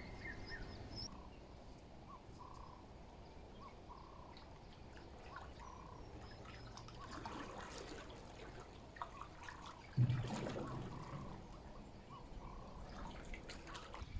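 Faint outdoor ambience of short animal calls repeating every second or so, with a single knock about ten seconds in.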